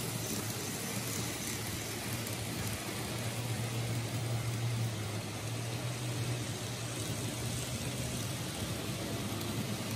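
N gauge model trains running on the layout track: a steady low motor hum with a hiss of wheel-on-rail noise that swells slightly as trains pass.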